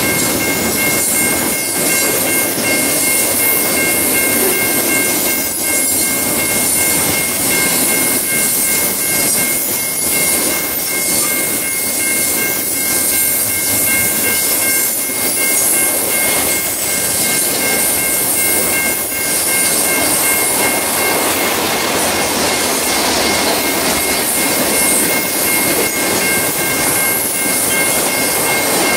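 Norfolk Southern intermodal freight train's double-stack container cars and trailer flatcars rolling past: a steady rush and rumble of steel wheels on rail, with a thin, steady high-pitched squeal running over it.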